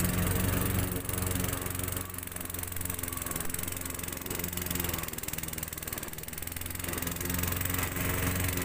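Gasoline lawn mower engine running steadily, fading somewhat through the middle and growing louder again near the end.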